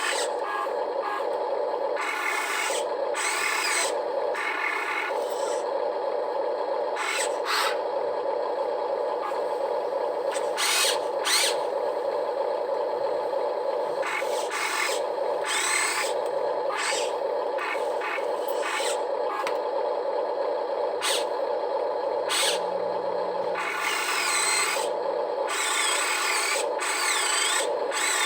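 Small electric motors of a Huina RC construction model whirring, starting and stopping every second or so as the machine works, with short scraping noises from the sand.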